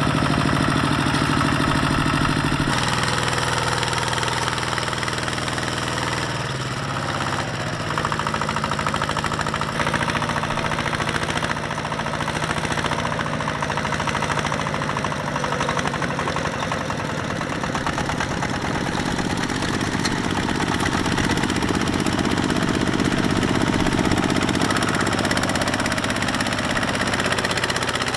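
A tractor engine running steadily under load. Its note changes abruptly several times as the revs or the load shift.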